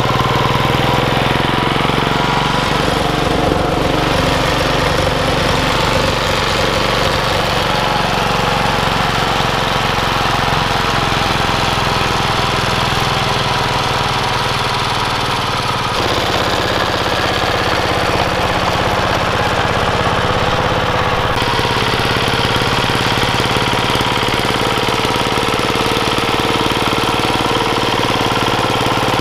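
Yanmar TC14 walking tractor's single-cylinder diesel engine running steadily under load, driving the rear tiller that forms the vegetable beds.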